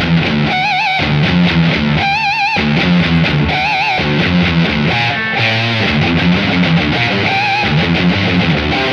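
Heavy distorted electric guitar playing a metal riff: low chugging notes, broken several times by high held notes shaken with a wide vibrato.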